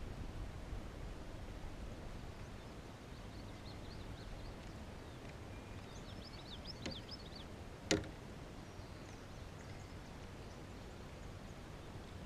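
Quiet outdoor pond ambience: a steady low rumble of wind and water with faint bird chirps, and a single sharp click or knock about eight seconds in.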